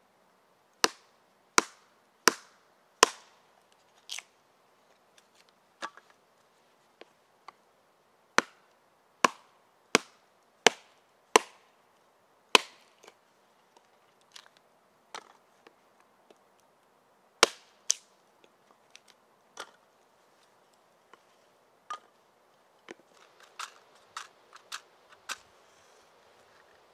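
A series of sharp strikes from a hand tool, in runs of about one blow every three quarters of a second. There are fainter knocks between the runs and a quicker flurry of lighter taps near the end.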